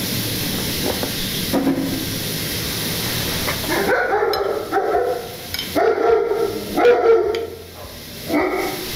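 A pan of vegetables sizzling steadily in oil. About four seconds in, a dog barks about five times in short, clear barks over the sizzle.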